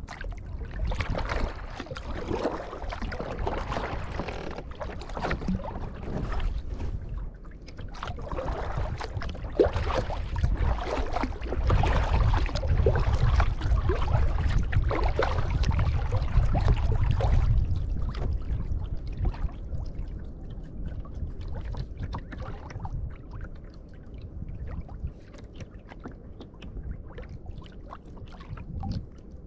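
Kayak paddle blades dipping and splashing in the water, stroke after stroke, heard from on board. The splashing is louder for the first two-thirds and grows quieter later on, with a low rumble mixed in near the middle.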